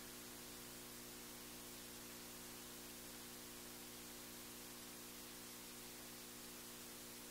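Near silence: a faint, steady hiss with a low electrical hum and nothing else.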